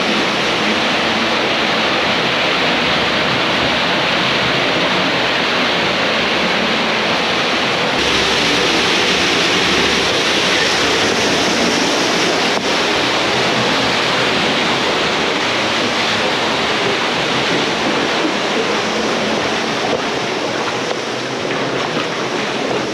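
Small waterfall pouring through a narrow sandstone slot into a pool: a loud, steady rush of falling water close to the microphone, growing a little louder about eight seconds in.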